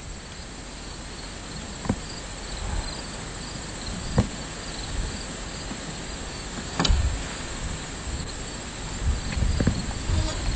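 Insects, likely crickets, chirping faintly and steadily over a hiss, with a few sharp knocks a couple of seconds apart.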